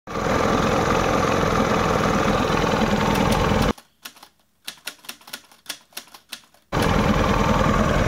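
Mercury 25 outboard engine running steadily with its cowling off, a rapid even firing beat. It cuts out a little past halfway for about three seconds of scattered sharp clicks, then comes back near the end.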